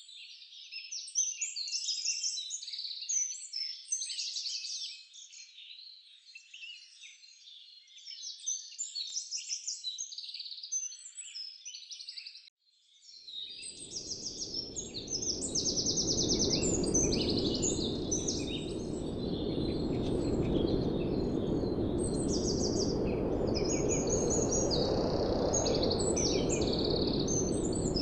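A dense chorus of songbirds, many overlapping chirps and trills. Roughly halfway through the sound breaks off for a moment, then a steady low rushing noise comes in under the birds and becomes the loudest sound.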